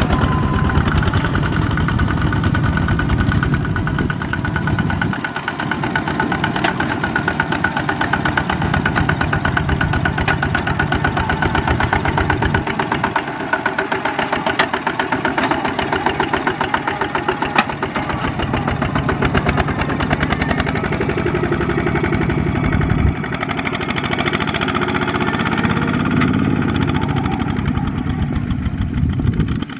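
Two-wheel walking tractor's single-cylinder diesel engine running under load, hauling a loaded trailer, with a fast, steady beat of firing strokes. Its sound shifts a few times along the way.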